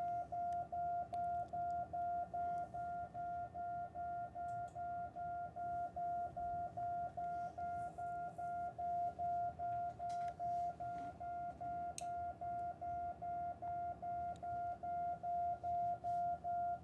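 Morse code (CW) tone: an unbroken string of evenly spaced dits, one steady mid-pitched beep keyed on and off a few times a second. It is the repeated dit test signal sent to trigger the Lab599 TX-500's firmware buffer-overflow bug.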